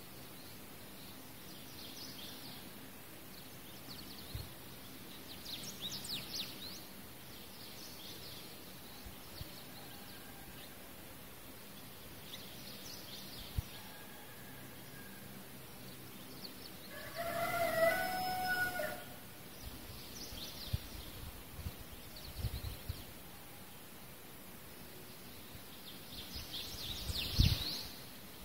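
Faint bird chirps over a steady background hiss and hum. About two-thirds of the way through comes one louder drawn-out pitched call, a bird or animal, lasting about a second and a half. A few low thumps follow toward the end.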